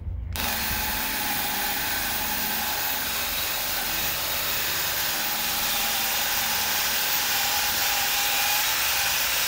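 DeWalt 20V cordless drill spinning a 3M Stripe Off rubber eraser wheel pressed against car door paint, a steady whir and rubbing that starts a moment in, as the wheel strips an old painted-on pinstripe off the clear coat.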